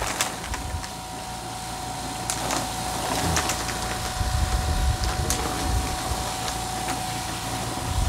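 Pipe-cleaning machine flushing a floor-heating pipe with alternating pulses of compressed air and water to drive out rust water and sludge: a steady hum under an uneven low rumble, with scattered sharp clicks.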